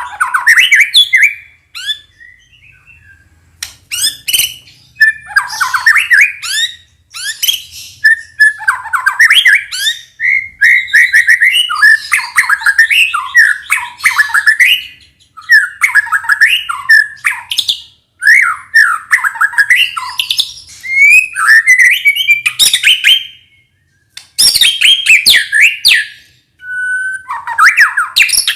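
White-rumped shama singing rapid, varied phrases mixed with harsh notes, in bursts of a few seconds broken by short pauses, with sharp clicks between phrases. This is the kind of shama song recording played as a lure to get young birds to sing.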